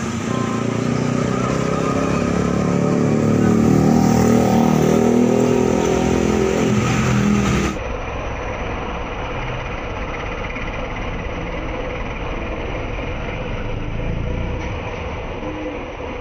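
Heavy diesel engines of a dump truck and a crawler bulldozer working while the truck's raised bed tips out soil: an engine revving with rising pitch for about the first half, then, after an abrupt cut, a rougher steady engine rumble.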